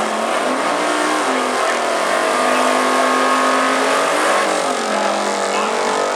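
Drag race car engines at full throttle down the strip, their pitch climbing and then dropping back several times as they shift gears.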